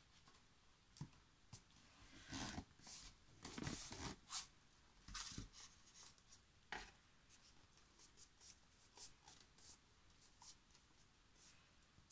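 Faint rustling, rubbing and light taps of paper and card as hands press and smooth freshly glued scrapbook paper onto a cardboard frame. A cluster of soft rustles comes a few seconds in, then a sharper click and lighter scattered ticks.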